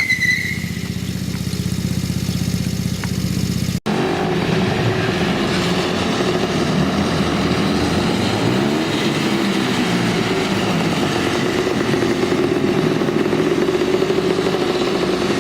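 Small vehicle engine running steadily. An abrupt cut about four seconds in switches to an engine whose pitch rises and falls as it is revved.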